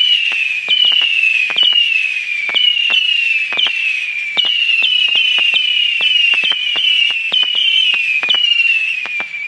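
A 325-shot missile firework battery firing in rapid succession: a stream of whistling missiles, each whistle starting sharply and falling slightly in pitch, overlapping one another, with quick pops throughout. It stops near the end.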